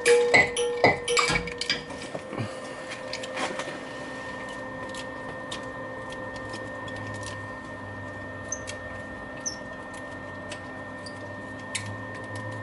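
Sharp metal clicks and clinks from a wrench working a welded-on nut that is backing a broken head bolt out of the head, bunched in the first couple of seconds and then thinning to a few faint ticks over a steady hum.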